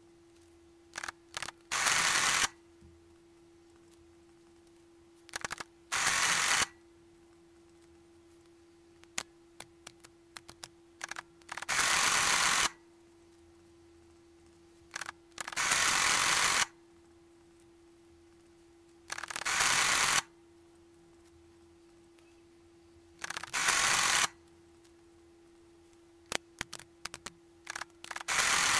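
Friden STW10 electromechanical calculator: a few sharp key clicks, then the machine running through a multiplication cycle of about a second, with a loud, even mechanical chatter. This happens six times, with a seventh run starting at the very end.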